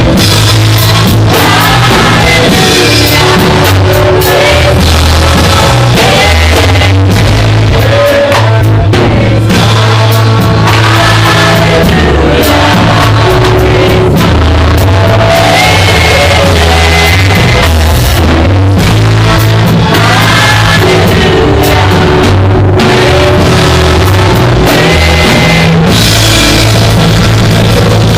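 Loud church praise-and-worship band music: drum kit and bass driving a steady beat, with singing over it.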